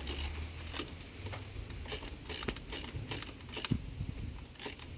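Hand socket ratchet clicking in short irregular runs as a stiff fastener under the car is worked loose.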